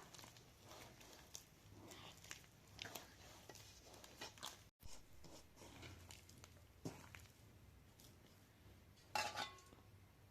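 Faint, scattered clicks and light knocks of kitchen utensils and dishes being handled, with a brief louder clatter about nine seconds in.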